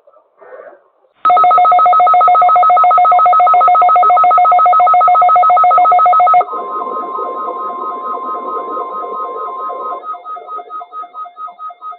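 Weather radio alert tones: a loud, rapidly pulsing electronic alarm starts about a second in. About halfway through it drops in level while a steady single tone sounds beneath it, and the steady tone stops shortly before the end while the pulsed beeping carries on.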